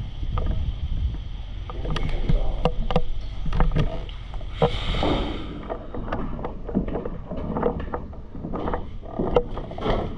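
Wind rumbling on the microphone, with irregular sharp clicks and a short rustling burst about halfway through.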